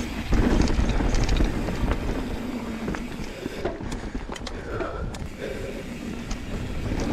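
Mountain bike riding down a dirt forest trail: tyres rolling and skidding over the ground, with a steady low rumble and many small clicks and rattles from the bike as it goes over bumps. The rumble is heaviest in the first second and a half.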